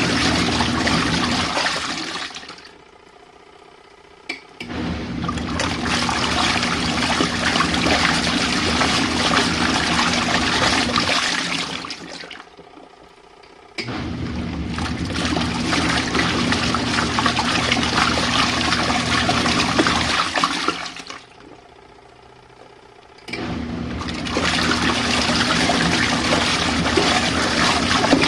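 Portable washing machine running its rinse cycle: the motor hums and churns the water with loud sloshing. The churning stops for about two seconds three times, at roughly ten-second intervals, and then starts again.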